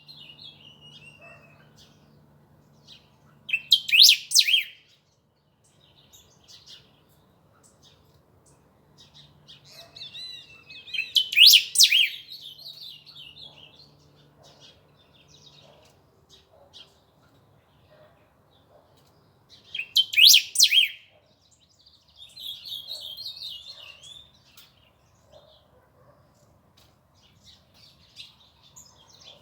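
A small bird chirping: three loud bursts of rapid high chirps, each about a second long and spaced roughly eight seconds apart, with softer twittering in between.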